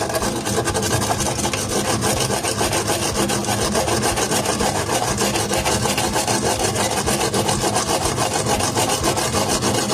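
Sandpaper scrubbed rapidly back and forth on refrigerator tubing, a steady, fast scratching that cuts off near the end, stripping old paint so the braze will adhere.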